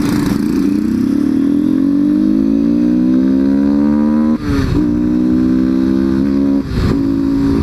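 Honda XRE 190's single-cylinder engine pulling hard with its air filter removed, a loud open intake growl that the rider says sounds like a BMW G 310. The pitch climbs for about four seconds, drops at a gear change, holds, and drops again at a second change near the end.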